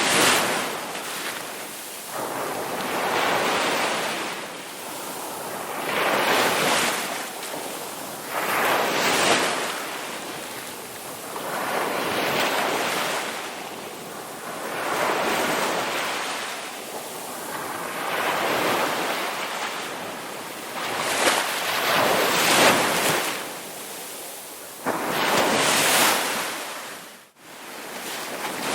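Sea waves breaking and washing up a beach, each wave swelling and falling away every few seconds. The sound drops out sharply for a moment near the end.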